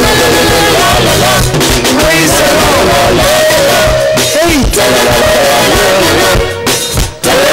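Loud praise and worship music with singing, dropping out briefly near the end.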